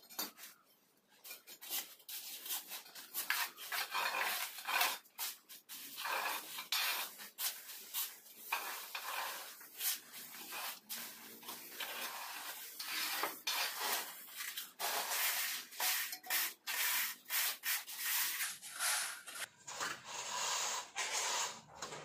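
Hand plastering tools scraping and rubbing over a wet sand-and-cement mortar floor bed as it is levelled and smoothed: many irregular rasping strokes in quick succession.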